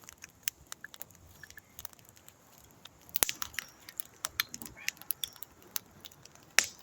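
Scattered crackles and sharp snaps from a burning log fire, with a louder pop about three seconds in and another near the end.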